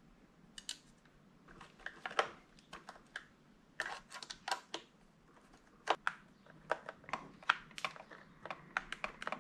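Phillips screwdriver driving the battery-retaining screws into the plastic body of a Dyson V8 cordless vacuum: irregular small clicks and ticks of the driver in the screw heads and of the plastic parts being handled.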